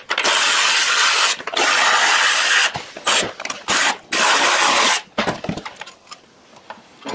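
Cordless ratchet running in four or five bursts of about a second each, spinning out the throttle body's mounting bolts. After about five seconds the motor stops and only light clicks of parts being handled remain.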